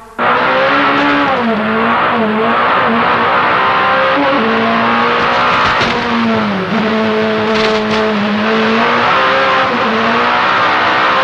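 Peugeot 405 Turbo 16's turbocharged four-cylinder engine at full throttle, heard on board, its pitch dipping and recovering several times. A steady hiss of tyres on gravel runs under it.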